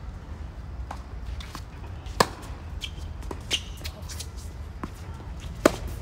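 Tennis rally: a ball struck by rackets and bouncing on a hard court, with two sharp, loud hits about two seconds and five and a half seconds in and several fainter pops from farther away.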